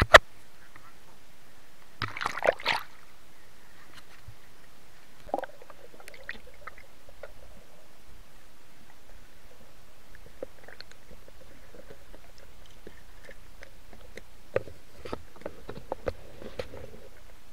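River water splashing and sloshing around a diver, with a sharp knock at the very start and a short burst of splashing about two seconds in. After that the sound turns muffled, heard through the submerged camera: scattered small clicks and knocks under the water.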